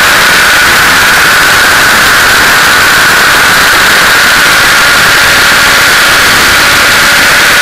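T-Rex 600 radio-controlled helicopter in flight, heard through a camera mounted on its landing skid: loud, unvarying noise of the rotor and drivetrain with a steady whine.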